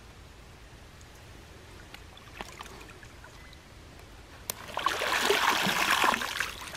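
A mirror carp released from a retention sling into the water: faint water movement at first, then about five seconds in a loud splashing lasting under two seconds as the carp kicks its tail and swims off.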